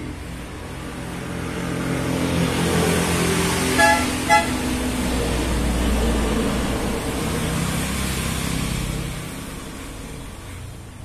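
A motor vehicle passing by on the road, its sound swelling and then fading, with two quick beeps of its horn a little before the middle.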